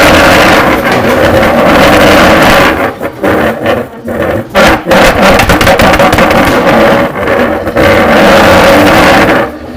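Very loud, dense, distorted noise with steady droning tones through it. It drops out briefly several times about three to five seconds in, and again near the end.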